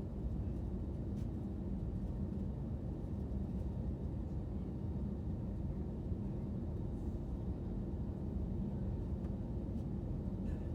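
Jet airliner cabin noise: a steady low rumble of engines and airflow, unchanging in level throughout.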